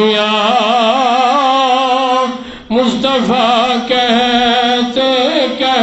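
A man singing devotional verse in praise of the Prophet (a naat) into a microphone, drawing out long melismatic notes with heavy vibrato, with a short breath a little over two seconds in.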